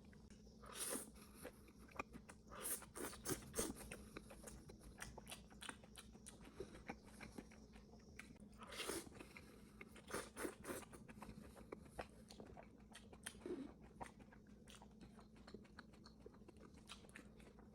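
Close-miked eating of noodles: wet chewing with many short clicks and smacks, and a few longer, louder bursts.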